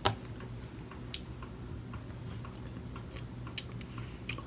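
Close-miked chewing of sushi: soft mouth sounds with a few sharp, crisp clicks, the loudest about three and a half seconds in.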